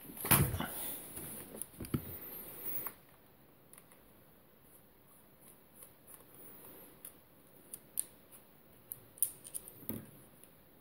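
Handling noise from plastic Sennheiser HD 558 headphones as they are picked up. Then small clicks and scrapes of a small screwdriver turning the screws in an ear cup to free its cover, with a soft knock near the end.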